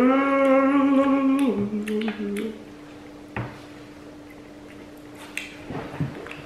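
A person eating hums a long closed-mouth "mmm", held for about a second and a half and then stepping down in pitch for another second. After it come a few faint clicks of forks and food in foil pans, over a steady low electrical hum.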